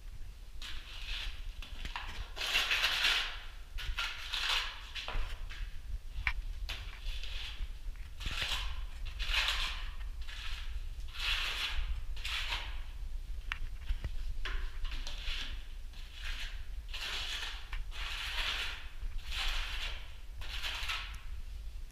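Steel trowel scraping tile adhesive onto a brick wall in repeated spreading strokes, about one a second, laying down the scratch coat before cement plaster. A few sharp clicks come in between as the trowel scoops from the bucket.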